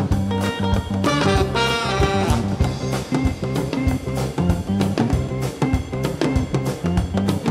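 Background music with a steady drum beat and pitched instruments.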